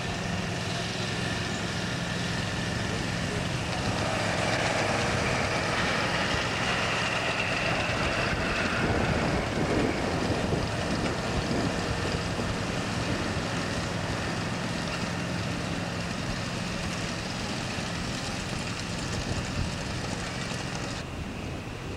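A ride-on miniature train running past on its track, a steady mechanical hum with wind noise, swelling louder between about four and ten seconds as the train passes close.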